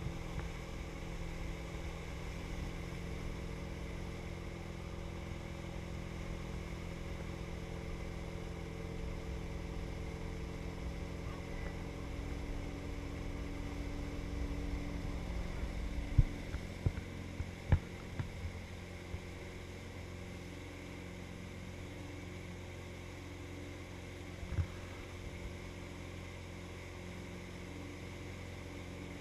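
Motorboat engine running steadily at towing speed, over the rush of its wake. Several sharp knocks come about halfway through and one more near the end, and the drone is a little quieter after the knocks.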